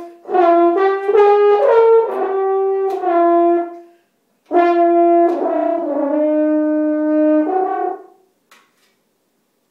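French horn played solo: a phrase of separate held notes, a short breath about four seconds in, then a second phrase with one long held note, the playing stopping about eight seconds in.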